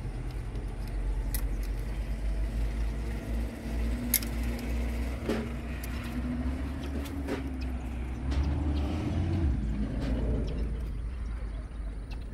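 A few sharp metallic clicks and clinks as hand tools work on an excavator's hydraulic control valve, opening a holding valve cap, over a steady low rumble.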